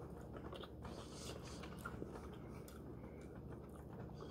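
Faint chewing and mouth sounds from someone tasting barbecue sauce, with a few small scattered clicks.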